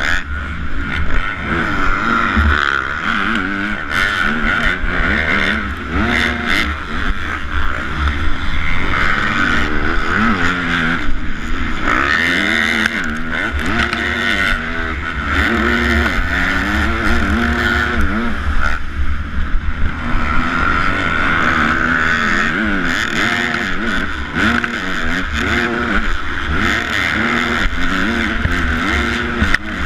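A 250 motocross bike's engine, heard from onboard, revving hard up and down over and over as the rider accelerates, shifts and backs off around the dirt track.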